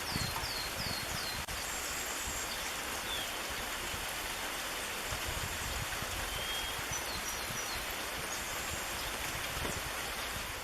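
Steady rain falling, an even hiss. A small bird gives a quick series of four short, high, falling chirps in the first second and a few more thin chirps around seven seconds in.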